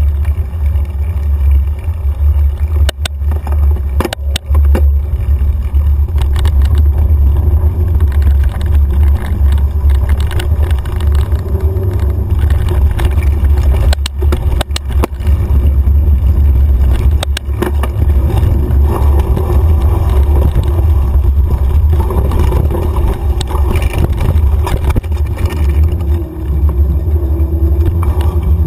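Wind buffeting and vibration on a handlebar-mounted action camera riding a mountain bike over a dirt singletrack: a deep steady rumble, with sharp knocks from bumps in the trail now and then.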